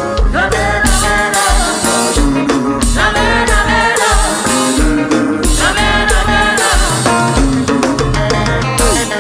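Music from a DJ mix: a dance track with a steady, pulsing bass beat and long held melodic phrases over it.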